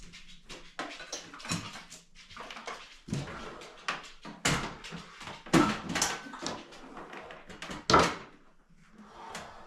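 A pet dog whimpering and whining in a series of short cries, loudest about halfway through and again near the end.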